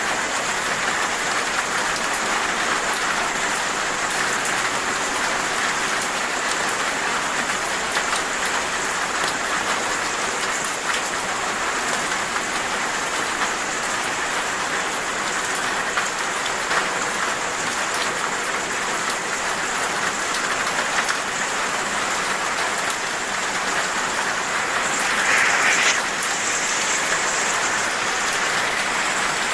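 Steady rain falling, a dense patter of drops hitting surfaces. It swells briefly louder near the end.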